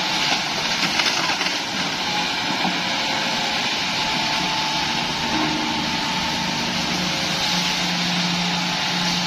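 Hitachi hydraulic excavator's diesel engine running steadily under working load, with a few short cracks or knocks in the first two seconds.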